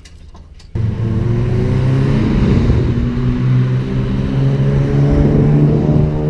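Car engine and exhaust with the muffler spaced off, a deliberate exhaust leak, accelerating under load with a slowly rising pitch. It cuts in suddenly about a second in and stops near the end.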